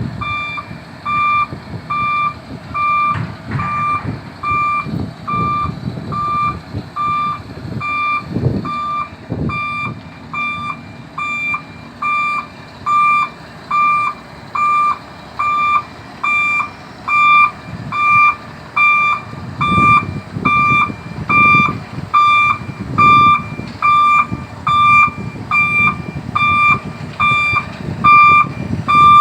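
Warning beeper of a Kato 25-ton rough terrain crane sounding a steady series of beeps, about three every two seconds, growing louder over the second half. Under it the crane's diesel engine runs with a few brief surges.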